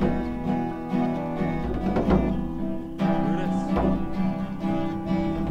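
Acoustic guitar music, plucked and strummed notes ringing on.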